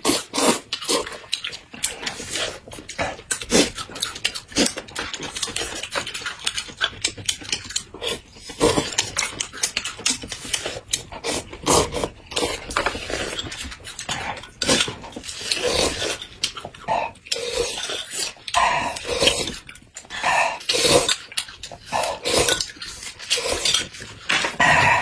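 Close-miked eating: noodles slurped off chopsticks and apple flesh bitten and chewed, an irregular run of wet slurps, crunches and mouth smacks.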